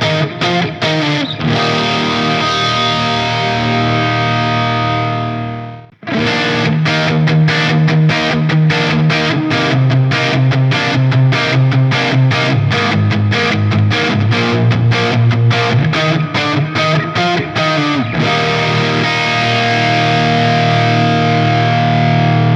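PRS Standard 24 electric guitar with DMO pickups, played through heavy distortion. A quick chugging riff leads into a chord left ringing for a few seconds and cut off sharply. Then comes a long fast chugging riff, ending on a sustained chord.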